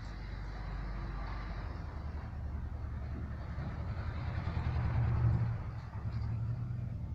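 Low rumble of a motor vehicle passing, building to its loudest about five seconds in and then easing off.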